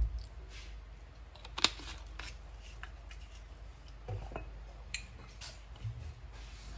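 Light clicks and knocks of bottles being handled at the stove, as a plastic soy sauce bottle is set down and a glass vinegar bottle is picked up. The sharpest click comes about a second and a half in, with a few softer knocks later.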